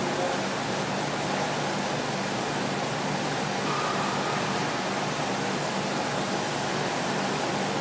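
Steady machinery noise: an even rushing hiss with a low hum that pulses evenly.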